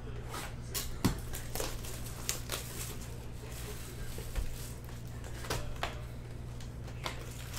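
Crinkling and tearing of 2020 Bowman baseball card pack wrappers and rustling of cards being handled, in irregular short bursts with a sharper knock about a second in, over a low steady hum.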